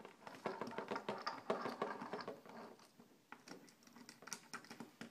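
Small plastic toy figurines being set down and shuffled on a tabletop: a scatter of light clicks and taps, busier in the first half.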